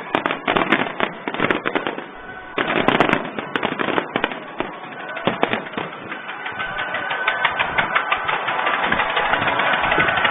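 Fireworks going off in rapid succession: dense bursts and crackling, with a louder volley about two and a half seconds in and a crackle that builds steadily toward the end.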